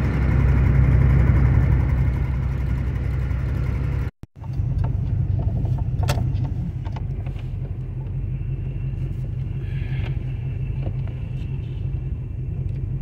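Car engine running steadily, a low hum heard from inside the cabin, with a brief dropout about four seconds in and a sharp click about six seconds in.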